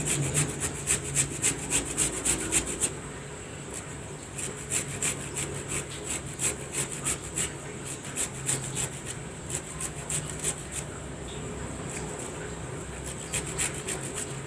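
Fresh ginger root being grated on a hand grater: rhythmic rasping strokes, about three a second, louder for the first few seconds and then softer and slower.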